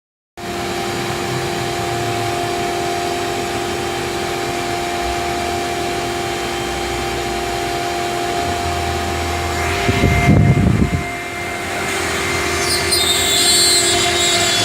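CNC wood router running: the spindle holds a steady whine. A short low rumble comes about ten seconds in, and near the end a higher, harsher noise joins as the bit cuts the wood.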